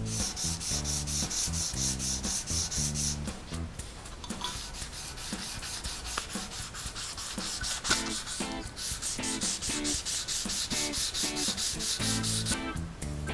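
Hand-polishing of a metal firearm action with 240-grit abrasive paper backed by a pink eraser and wet with WD-40: quick back-and-forth rubbing strokes with a high hiss. The strokes come in three runs, broken by short pauses about three seconds and eight and a half seconds in.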